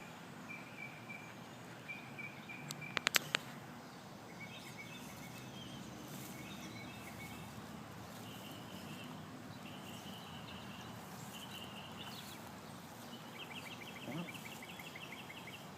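Faint outdoor birdsong: short phrases of quickly repeated high notes, with a rapid ticking trill near the end. A quick run of sharp clicks about three seconds in.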